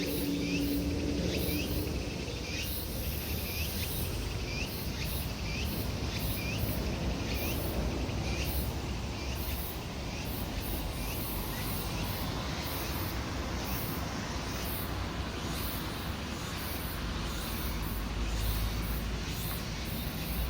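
Late-summer insects singing: tsukutsukuboshi cicadas and matsumushi pine crickets. Short hooked chirps repeat about once a second through the first half, over a steady high pulsing trill. A low traffic rumble swells near the end.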